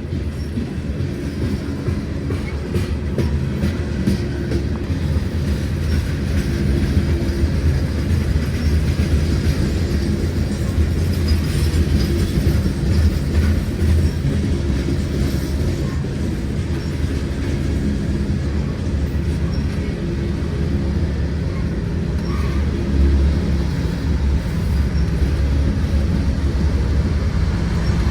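Freight train rolling past, a steady low rumble of wheels on rail with railcars clattering by.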